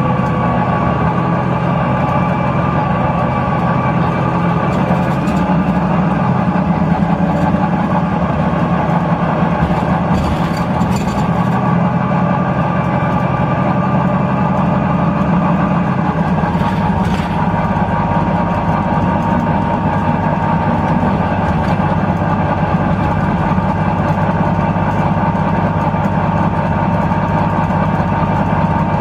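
Volvo B9TL double-decker bus's six-cylinder diesel engine running under way, heard from inside the bus: a steady, loud engine note with a level whine above it. A couple of brief rattles come about ten and seventeen seconds in.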